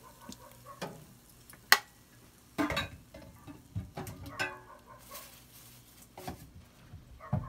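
A cooking utensil scraping and knocking irregularly against a non-stick wok while bean sprouts are stir-fried without oil, with light sizzling. A sharp knock about a second and a half in is the loudest, and a run of scrapes follows near the middle.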